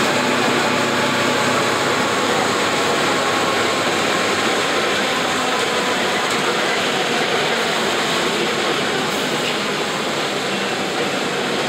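Steady cabin noise inside a moving Volksbus 17-230 OD city bus: engine running and tyres on a rain-soaked road.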